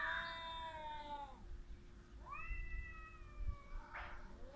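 Two cats yowling at each other in a territorial standoff before a fight: long, drawn-out, wavering yowls, one fading out a little over a second in and another rising up and held for about a second and a half, followed by a short rasping burst near the end.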